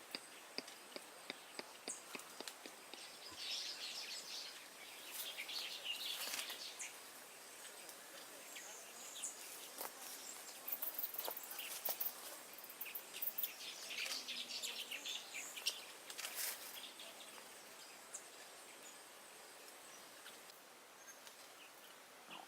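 Faint outdoor ambience of scattered bird chirps and insect calls, in bursts between about four and seventeen seconds in, over a low steady hiss.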